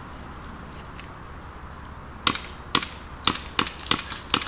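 Airsoft pistol firing, about six sharp, single shots in quick, uneven succession starting a little past halfway in.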